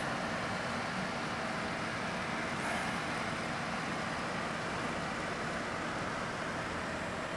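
Water-cooled desktop PC running: a steady whir of its cooling fans and pump with a faint low hum.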